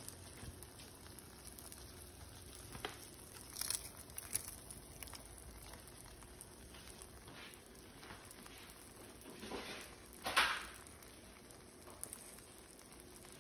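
Cooked bacon crumbled by hand over an omelette in a frying pan: a few brief dry crinkling, crumbling sounds over a faint steady hiss, the loudest about ten seconds in.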